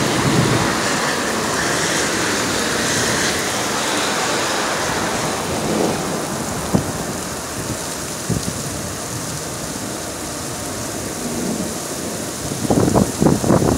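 Heavy rain pouring steadily in a thunderstorm. Near the end comes a louder, irregular rumbling burst.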